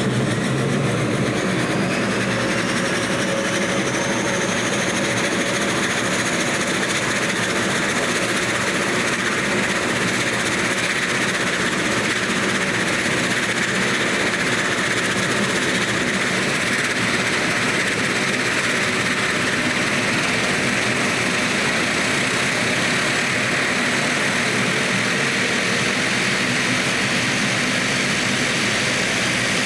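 Dash 8 Q300 turboprop engines (Pratt & Whitney Canada PW123) running steadily, with a whine that rises in pitch over the first few seconds.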